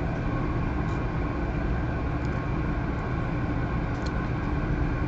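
Steady machine hum with a few faint light clicks.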